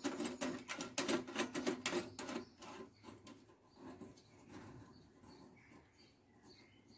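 Screws being turned down finger tight into the thin titanium top plate of a wood stove: a fast run of light scratching clicks for the first two seconds or so, then fainter, sparser ones.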